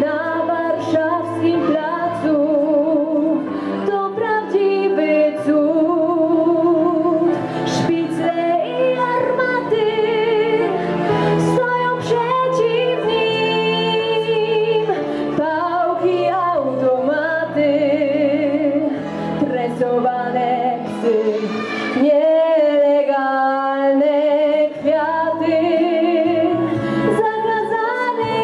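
A young woman singing solo into a handheld microphone over instrumental backing, her held notes wavering with vibrato.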